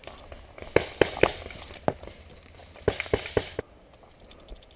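Paintball markers firing: about four single shots spread over the first two seconds, then a quick string of about five shots around three seconds in.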